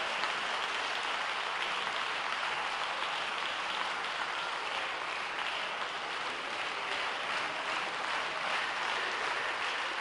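Large audience applauding, a steady even clapping.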